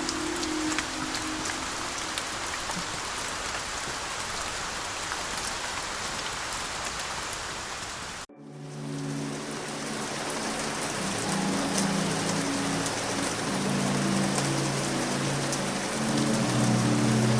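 Steady rain ambience mixed with soft, low sustained ambient music notes. The audio cuts out briefly about eight seconds in, at a change of track, and the rain then fades back in. Low held notes build up again under the rain.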